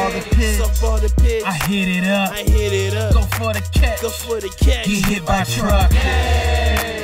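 Hip hop music with a deep bass line and sharp drum hits.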